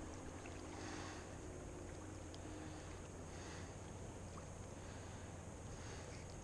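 Faint, steady outdoor background hiss, with a few soft rustles and faint ticks as fishing line is handled and knotted by hand.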